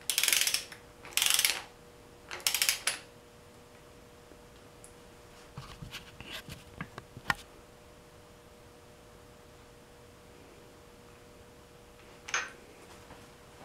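Ratchet of a torque wrench clicking in three quick strokes as a water pump bolt is run down, then a few light metal clicks and taps.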